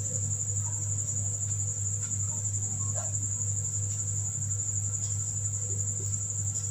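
Steady high-pitched whine over a low hum, with faint scratches and squeaks of a marker writing on a whiteboard.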